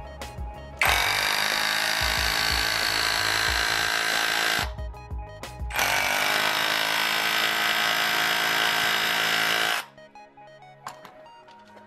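Parkside Performance PKHAP 20-Li A1 cordless brushless hammer drill chipping at a block of stone with a point chisel. It runs in two bursts of about four seconds each, with a pause of about a second between them, and stops abruptly near the end.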